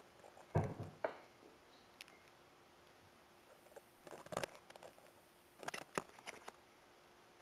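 Faint rustling and clicking on a trail camera's night recording as an animal steps over a track plate and through dry grass, in short clusters about half a second in, around four seconds and again near six seconds.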